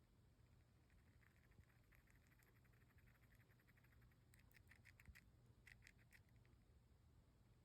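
Pet hamster grinding its teeth (bruxing): a run of rapid, faint clicking that grows louder in two short clusters near the middle, then stops.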